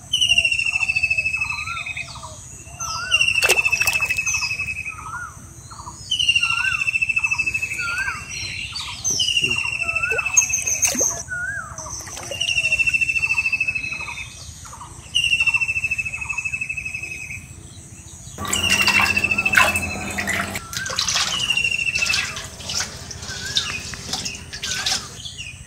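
Forest wildlife: a trilled call that slides down in pitch, repeated about every three seconds, with shorter chirps between, over a steady high insect drone. A short burst of noise comes a few seconds before the end.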